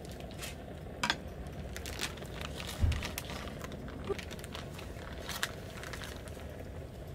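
Crinkling and rustling of a plastic food pouch as it is cut open with scissors and squeezed out over a metal plate. There are a few sharp clicks, and a dull thump about three seconds in, over a steady low background noise.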